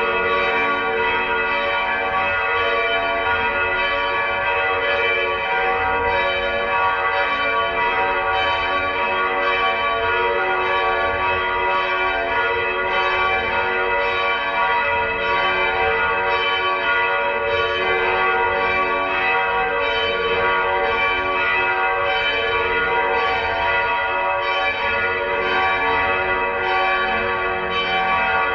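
Church bells ringing together in a continuous peal, their strokes overlapping into a steady, dense wash of ringing tones.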